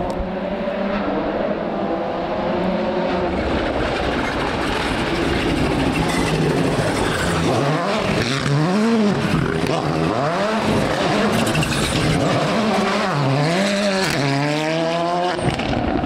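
Rally car at stage speed, its engine revving hard. The revs swoop up and down steeply twice, once around the middle and again near the end, as it works through a corner.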